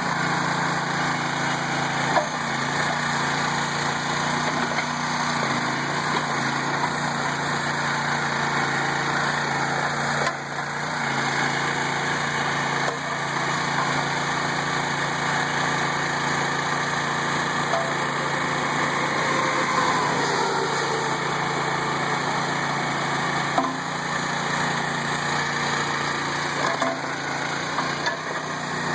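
The small engine of a towable backhoe running steadily, its note shifting a few times, with a few short knocks.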